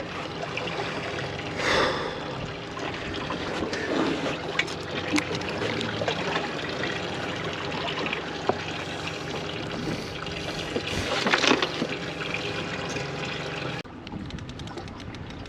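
Water trickling and splashing, with scattered clicks and knocks over it; the level drops suddenly near the end.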